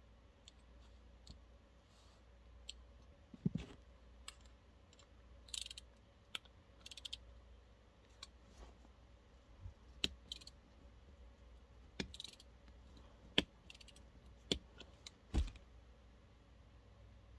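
Irregular sharp clicks and taps of small plastic toy parts being handled and taken apart, with short crackly rattles and a duller knock about three seconds in and another near the end.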